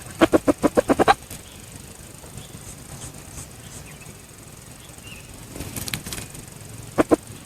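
Red junglefowl clucking: a rapid run of about eight short clucks in the first second, then two quick clucks near the end. Between them, a brief rustle about six seconds in.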